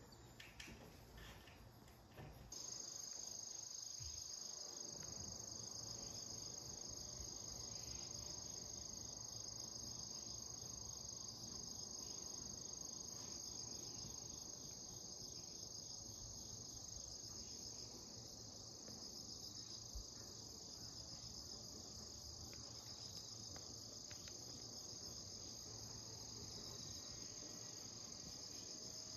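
Crickets chirring in a continuous high, finely pulsing trill, coming in suddenly about two and a half seconds in and holding steady.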